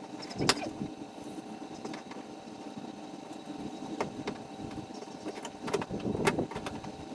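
A few sharp clicks and knocks as a replacement exterior door handle is worked into a Dodge Ram truck door, over a steady hum.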